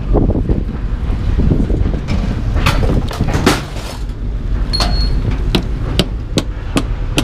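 Pieces of scrap metal being unloaded, a string of sharp clanks and knocks, one ringing briefly about five seconds in, over a steady low rumble.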